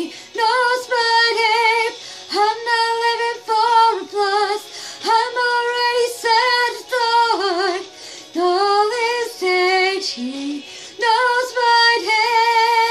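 A woman singing solo, in phrases with short breaks between them and vibrato on the held notes.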